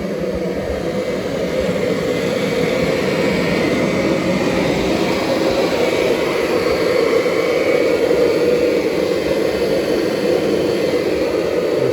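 Kirby upright vacuum cleaner running steadily, its motor giving a loud, even whine.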